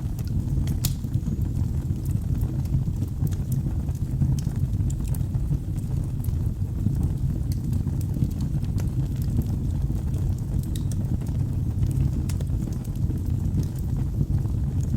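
Wood fire burning in a fireplace: a steady low rumble of flames with scattered sharp crackles at irregular intervals.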